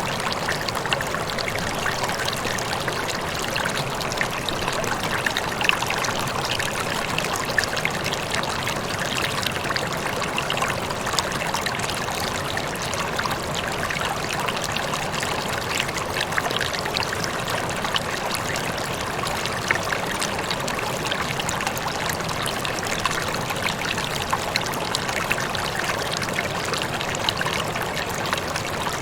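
Shallow water rippling and trickling steadily over stones, a continuous babble dotted with small splashes and plinks.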